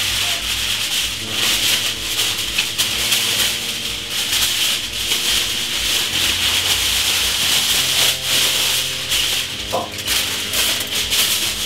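Aluminium kitchen foil being pulled off the roll and handled, a continuous crinkling crackle.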